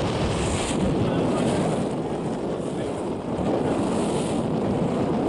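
Wind buffeting the microphone: a steady rushing noise, heaviest in the low end, with no distinct events.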